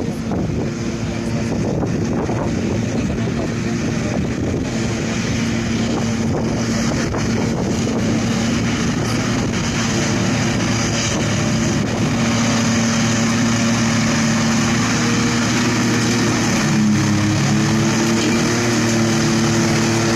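Claas Jaguar self-propelled forage harvester running under load, picking up and chopping grass and blowing it into a silage trailer, mixed with the engine of the tractor pulling the trailer alongside. A steady machinery drone that grows louder as the machines come closer, with a change in the engine note near the end.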